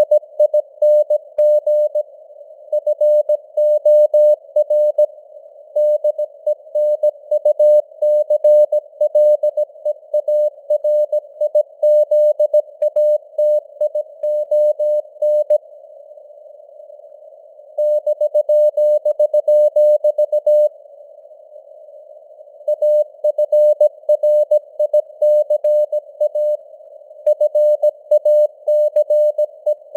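Morse code sent at 17 words per minute: a single tone of about 600 Hz keyed in dots and dashes, over a narrow band of simulated radio hiss like a CW receiver's filtered noise. The keying pauses twice for about two seconds, around a third and two-thirds of the way through.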